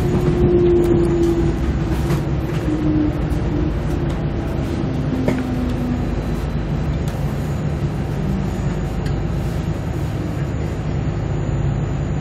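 Diesel multiple unit heard from inside the passenger cabin while under way: a steady low rumble of engine and wheels on the rails, with a whining tone that steps down in pitch as the train slows. A single short knock comes about five seconds in.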